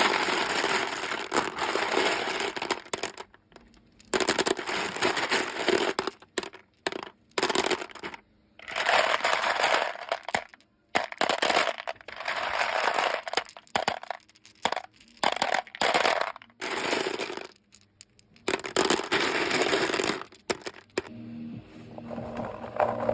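Craft beads being poured and stirred, a dense clattering rattle in bursts of a few seconds with short pauses between. A fainter, different sound with a low steady hum takes over near the end.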